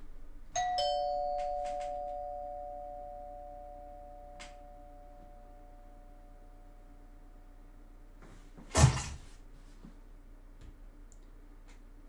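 Wired doorbell chime struck by its plunger: a higher note then a lower one, ding-dong, ringing and slowly fading over several seconds. Nearly nine seconds in, a short, loud splat sound plays from a computer.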